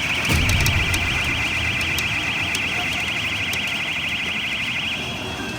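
Rapidly warbling electronic alarm-like tone from a pachinko machine, lasting about five seconds and then cutting off, with a low thump shortly after it starts and scattered small clicks.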